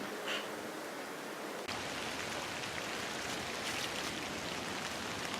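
Rain falling, a steady hiss with faint scattered drop ticks, which gets suddenly fuller and a little louder about a second and a half in.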